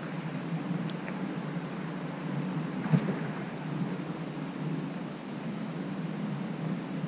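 Steady low outdoor rumble with short high chirps of a small bird about once a second, and one sharp knock about three seconds in.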